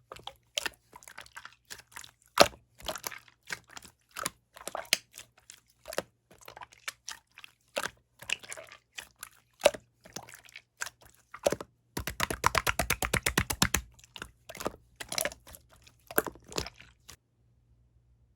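Opaque slime being squished and pressed by hand, making irregular sticky clicks and pops, with a quick run of rapid crackling pops about two-thirds of the way through; it stops shortly before the end.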